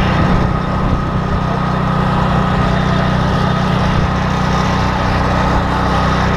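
A small engine on a light fire-rescue vehicle running steadily at a constant speed, a low hum with a thin steady whine above it.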